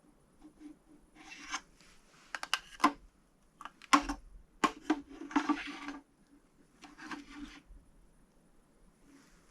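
Handling noises at a workbench: a run of sharp clicks and knocks with short scraping, rubbing strokes in between, the loudest knock about four seconds in, then quieter for the last couple of seconds.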